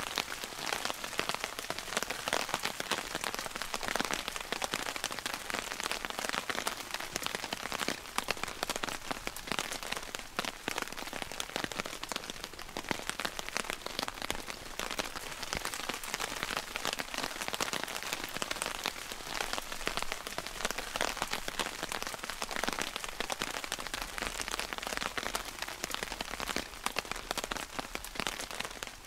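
Steady rain pattering, a dense crackle of many fine drops.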